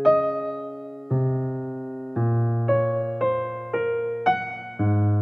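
Background music: a slow piano piece, single notes and chords struck every half second to a second, each fading before the next.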